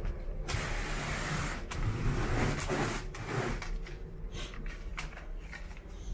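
Carpet groom rake dragged through freshly cleaned carpet pile in a series of rubbing strokes with short breaks between, grooming the pile upright after cleaning.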